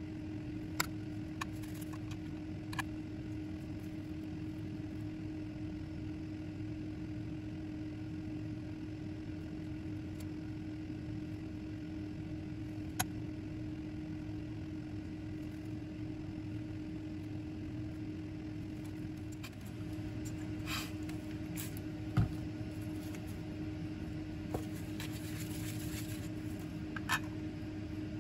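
Steady low machine hum with one constant tone, under scattered light clicks and taps of tweezers and plastic petri dishes being handled, with a sharper knock about three-quarters of the way through.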